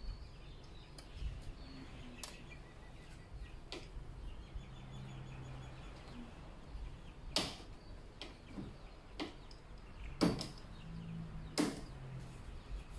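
Scattered sharp knocks over faint low background noise, the three loudest in the second half.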